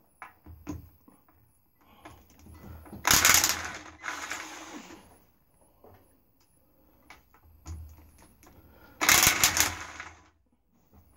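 Sealey impact wrench hammering on bolts in two short bursts, about three seconds in and again about nine seconds in, with light metallic clicks and clinks of socket and bolts between.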